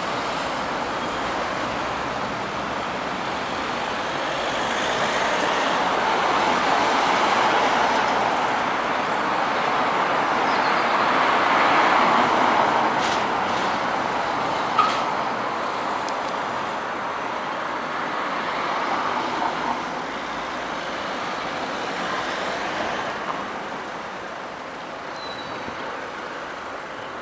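Road traffic driving past, with vehicles swelling louder as they go by, loudest about twelve seconds in, then easing off in the last few seconds. A single brief sharp sound cuts through about fifteen seconds in.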